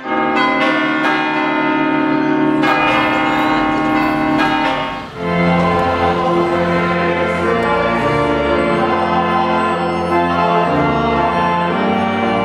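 Organ music playing sustained chords, with bell-like struck notes in the first few seconds. A brief break comes about five seconds in, then fuller chords return over deep bass notes.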